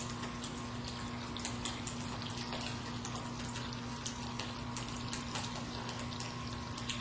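Water running steadily down the glass panels of a wall-mounted water feature, with many small splashes, over a steady low hum.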